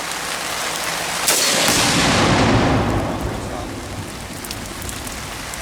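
A rifle shot sets off a Tannerite explosive target: a sharp crack about a second in, followed by a deep boom that rolls on for a couple of seconds and fades. Rain hisses throughout.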